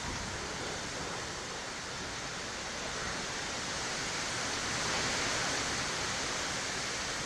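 Steady rushing noise of wind, swelling slightly about five seconds in.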